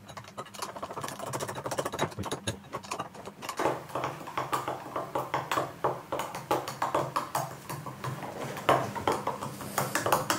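A drinking straw stirring milk in a glass tumbler, knocking and scraping against the glass in quick, irregular clicks.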